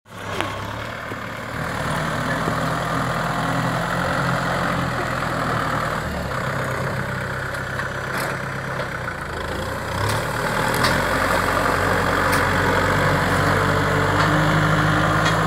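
Kubota M6040 SU tractor's diesel engine running steadily as the tractor drives through brush, its note shifting about six and ten seconds in.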